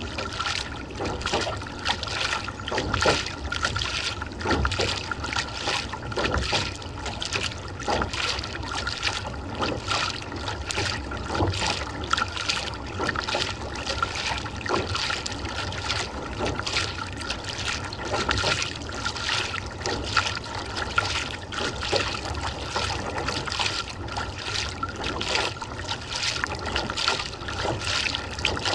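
Kayak paddle blades dipping and pulling through the water in steady strokes, with water splashing and trickling off the blades and washing along the hull of a Nordic Kayaks Squall sea kayak.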